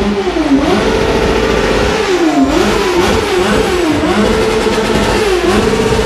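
Motorcycle engine revved hard while standing still, held at a high, steady pitch with repeated quick dips and returns. It is being thrashed at high revs, the kind of abuse that leaves work for mechanics.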